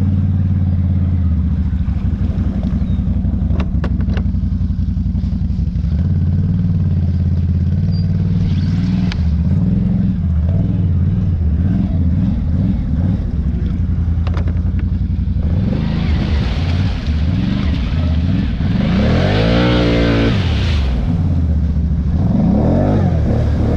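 ATV engine running steadily under load as the quad rides through shallow muddy water, with water splashing a little past the middle and the engine revving up and back down near the end.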